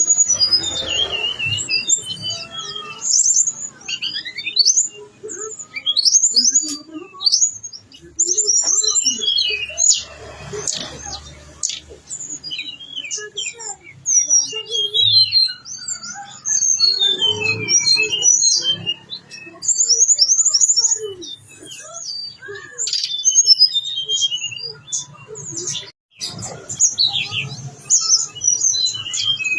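Tledekan gunung singing continuously: a fast, varied stream of high chirps, trills and whistled glides, with mimicked phrases of other birds woven in.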